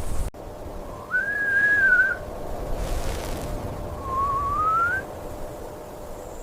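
Two whistled calls by a person: the first rises and holds for about a second, and the second glides upward a few seconds later.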